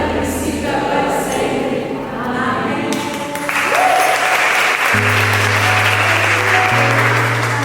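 A choir sings the closing notes of a Christmas song over keyboard accompaniment. About three and a half seconds in, applause breaks out and carries on over held low keyboard chords.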